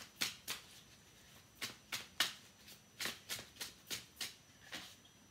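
A deck of tarot cards being shuffled by hand: a run of short, crisp card snaps, about two or three a second, with a short pause about a second in.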